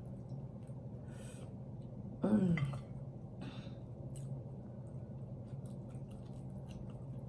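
Quiet room tone with a faint steady low hum and small scattered clicks, broken about two seconds in by a woman's short wordless vocal sound, a brief murmur that falls in pitch.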